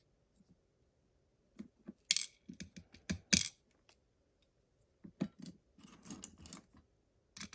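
Small lock pins and springs from a disassembled pin-tumbler lock clicking and clinking as they are handled and set down on a hard surface, with two louder metallic clinks about two and three seconds in and a run of lighter clicks near the end.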